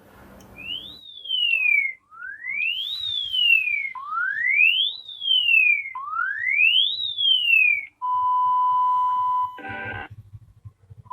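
Synthetic emergency-alert alarm tones: four identical wails that each rise in pitch for about a second and fall for about a second, then a steady single beep tone for about a second and a half that is cut off by a brief harsh burst of noise.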